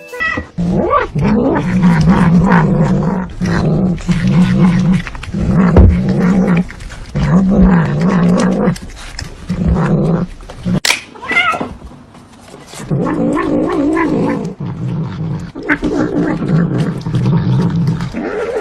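A cat yowling in long, wavering calls, about six in a row. A sharp click comes about eleven seconds in, followed by higher, more varied yowls.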